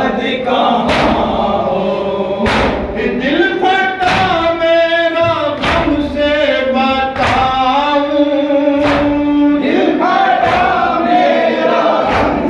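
Men's voices chanting a noha, a Shia lament, in long held notes led over a microphone, with hand strikes on the chest (matam) landing about every second and a half.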